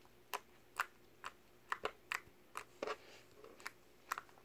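Slime being pressed and folded by fingers, giving about a dozen short, sharp clicking pops at an irregular pace of two to three a second.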